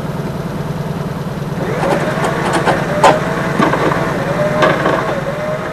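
Tow truck's engine running steadily, with a wavering whine above it and several sharp knocks while a wrecked car is handled at the tilted flatbed.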